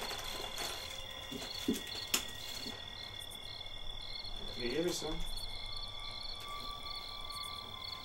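Crickets chirping in a steady rhythm of about three chirps a second, over a faint steady high tone. Two sharp clicks come around two seconds in, and a brief low voice sound about five seconds in.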